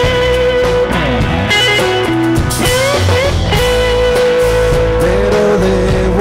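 Live rock band playing an instrumental break, with a guitar line that bends and slides between notes over drums.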